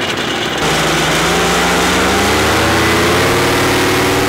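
Paramotor engine running close by, getting louder about half a second in, then rising gradually in pitch before levelling off.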